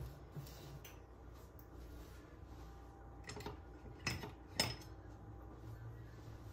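Kitchenware clinking: a few short, sharp knocks of dishes or utensils, three of them in quick succession in the second half.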